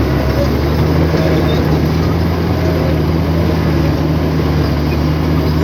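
Heavy diesel engine of earthmoving equipment running loud and steady under load, a deep, even drone with mechanical clatter above it.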